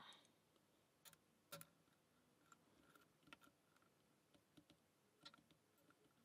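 Faint, irregular clicks and ticks of a lock pick working the pins of a pin-tumbler challenge lock under a tension tool, a dozen or so small clicks spread unevenly.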